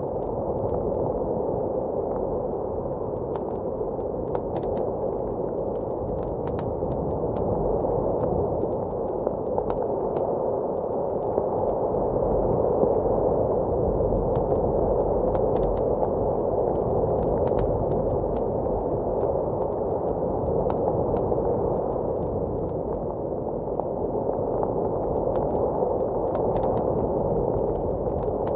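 Blizzard wind heard from indoors, a steady muffled rush that gently swells and eases, with sparse faint crackles and pops from a wood fire in a fireplace.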